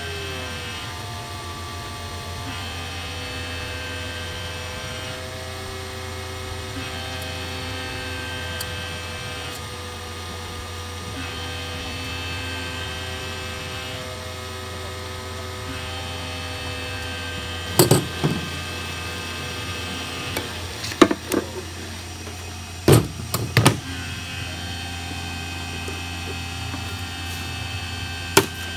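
Heat gun blowing hot air onto a bonded stud to soften its adhesive: a steady hum, with several sharp knocks in the second half.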